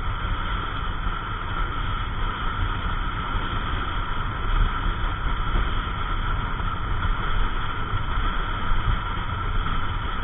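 Wind and riding noise on a Yamaha NMAX 155 scooter cruising at steady speed: a steady rushing rumble, heaviest in the low end, with no rise or fall.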